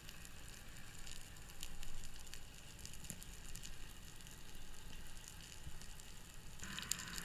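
Faint underwater ambience: a low hiss sprinkled with irregular sharp crackling clicks. Near the end a louder hiss in the middle range comes in.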